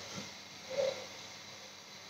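Quiet room tone, with one faint short sound a little under a second in.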